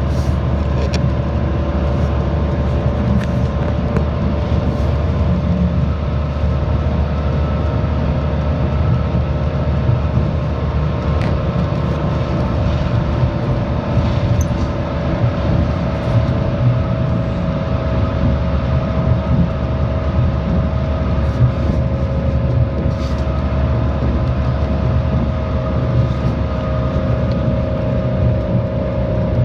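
Honolulu city bus running, heard from on board: a steady low engine rumble with a constant whine over it and a few faint clicks and rattles.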